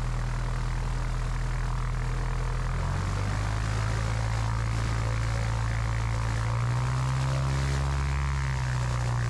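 Light aircraft's propeller engine idling while standing, a steady low drone. Its note shifts about three seconds in, then rises and grows stronger for a couple of seconds near the end before settling back.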